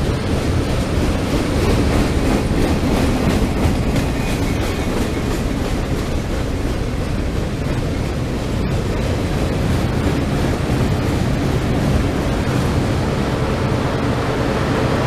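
Freight cars (gondolas, boxcars and autoracks) rolling past: a steady rumble of steel wheels on rail, with repeated clicks as the wheels cross rail joints.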